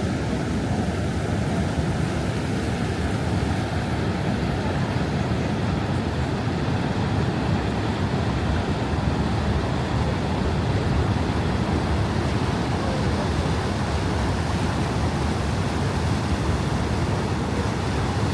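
Steady, unbroken rush of falling water at Niagara Falls, heaviest in the low range.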